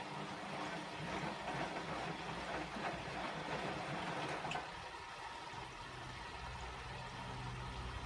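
Bosch WAE24162GB washing machine on its rinse cycle: water rushing for a few seconds, then the drum motor starting up with a low hum about six seconds in.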